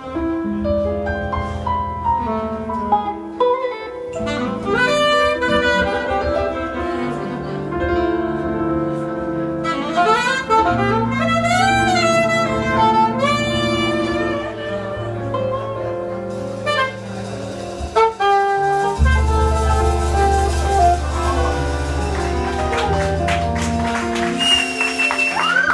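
Live small-group jazz: a saxophone plays the melodic line over hollow-body electric guitar, electric bass and drums. The bass line grows heavier about three quarters of the way through.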